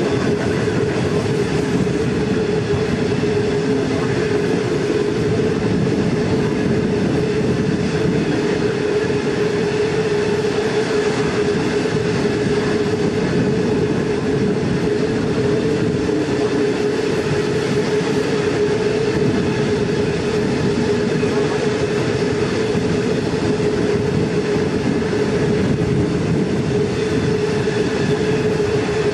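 Long freight train running at speed, heard from aboard: the steady rolling noise of the wagons on the rails, with a steady droning tone running through it.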